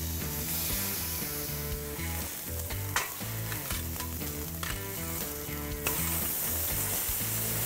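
Thick ribeye steaks sizzling loudly on a hot laser-cut searing grate over a wood fire as they are seared, with a couple of sharp clicks of metal tongs on the grate while the steaks are turned. The sizzle grows louder about six seconds in.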